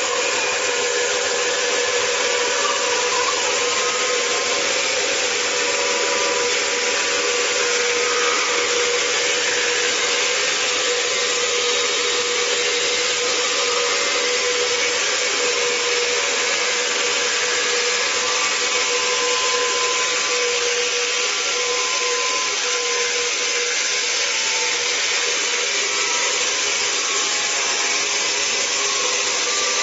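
MJ1600E horizontal band sawmill cutting lengthwise through a log: the steady hiss of the band blade in the wood over a steady machine hum.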